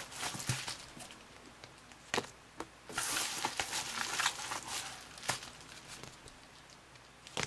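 Paper envelope and stickers rustling and crinkling as they are pulled out and handled, in bursts, the longest lasting over a second about three seconds in, with a few sharp clicks between.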